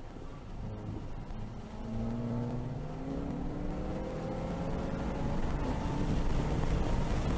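Turbocharged engine of a Volkswagen MQB track car accelerating hard under boost, its pitch climbing as revs rise in third gear, with an upshift to fourth about two-thirds through. The engine and road noise grow louder as the car gains speed.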